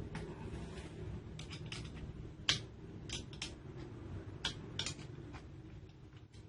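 About a dozen sharp metal clicks and taps, irregularly spaced, as the metal parts of a chainsaw attachment and a tool are handled while its screws are adjusted and tightened on an angle grinder, over a steady low hum.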